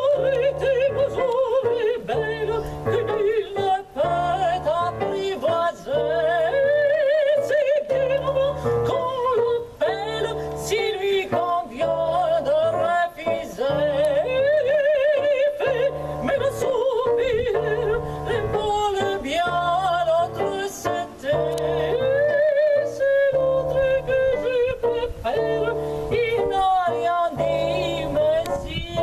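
A woman singing a melody with vibrato into a microphone. A live accompaniment plays under her, with low chords in a steady, regular rhythm.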